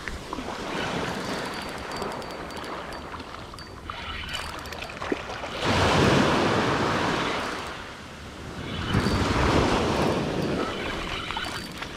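Small surf waves breaking and washing up on a sandy beach, swelling twice: about six seconds in and again about nine to eleven seconds in.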